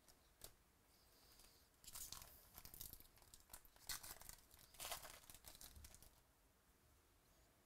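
Faint tearing and crinkling of a trading-card pack wrapper as it is ripped open by hand: a run of quick crackles and rips from about two to six seconds in.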